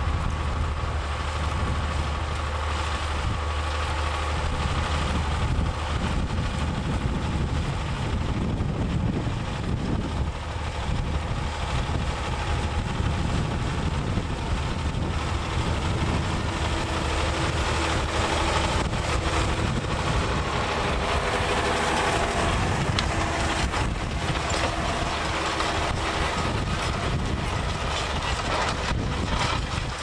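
John Deere 6150R tractor's six-cylinder diesel engine running steadily under load as it pulls a mounted reversible plough through the soil.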